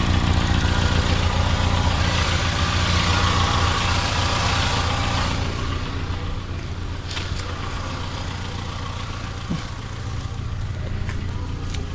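2016 Mitsubishi Outlander engine running with a steady low pulsing rumble, with a hiss over it that drops away about five seconds in.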